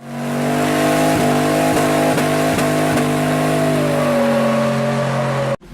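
A vehicle engine running at a steady pitch, with a few brief clicks; the sound drops slightly in pitch near the end and then cuts off abruptly.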